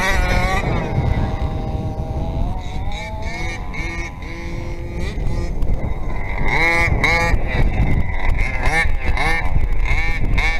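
Two-stroke petrol engine of a large-scale radio-controlled car revving as it is driven, its pitch rising and falling with the throttle. In the second half come quick repeated revs, about two a second.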